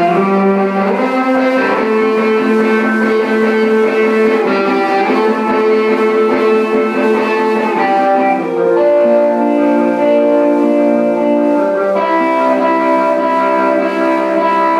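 Live instrumental music: electric guitar playing long, sustained chords that change slowly, every second or few.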